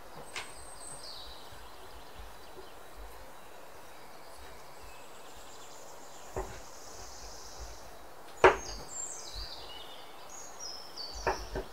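Chef's knife chopping dates on a bamboo cutting board: a few sharp, widely spaced knocks of the blade on the wood, the loudest about two-thirds of the way in. High descending chirps sound in the background over a steady hiss.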